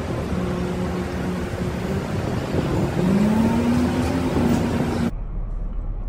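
Downtown street traffic with a city bus, whose motor pitch rises as it pulls away about three seconds in. The street noise cuts off abruptly about five seconds in, leaving a low steady rumble.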